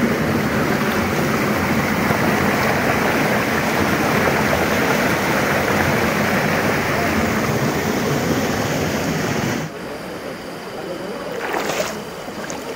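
Small waterfall splashing over boulders into a mountain stream: a steady rush of water. A little under ten seconds in it gives way to the quieter flow of a shallow stream over stones.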